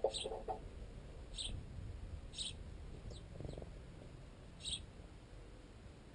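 Sparrows pecking at bread wedged in a tent guy line, the pecks carried up the tensioned tent pole to the microphone as a quick run of knocks at the start, with short high sparrow chirps three or four times.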